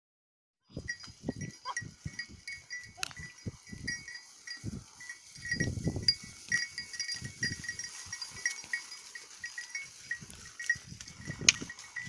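A flock of sheep moving close by, with bells jingling irregularly over low knocks and rustling. The sound starts suddenly about a second in.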